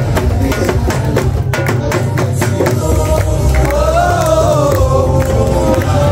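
Live Moroccan folk music: a large rope-tensioned double-headed drum beaten in a fast, driving rhythm, with a woman singing through a microphone. About halfway through she holds a long wavering note.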